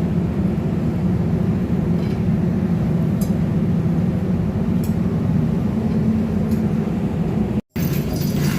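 Steady, loud drone of running machinery in a ship's engine room, with a few faint metallic clinks. The sound drops out completely for a moment near the end.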